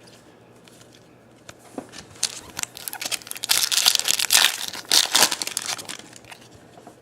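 Foil wrapper of a trading-card pack crinkling and tearing as it is opened by hand. The crackling starts about two seconds in and is densest and loudest a couple of seconds later before dying down.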